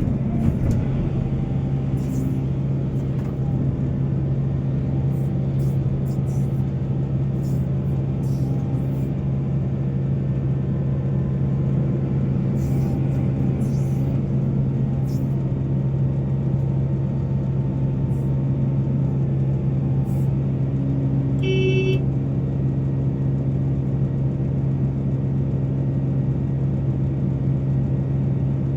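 Heavy diesel engine of mining machinery running steadily with a constant low hum, with a short beep about three-quarters of the way through.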